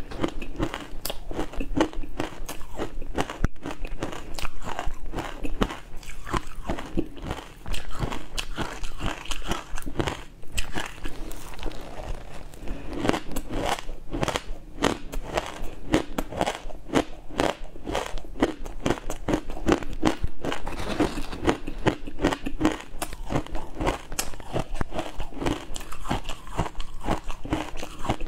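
Someone chewing and crunching matcha-dusted ice close to the microphone: a dense, unbroken run of crisp crackles and bites.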